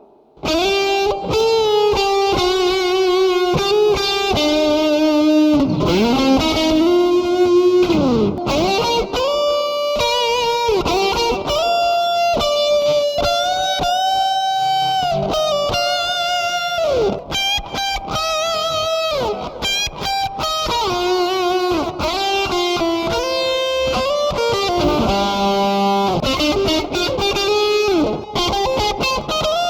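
Strat-type electric guitar fitted with single-coil-size 'Hotrail' humbucking pickups, playing a lead line of single notes with string bends and vibrato; it starts abruptly a moment in. The humbucker tone is clear and tight rather than fat and boomy.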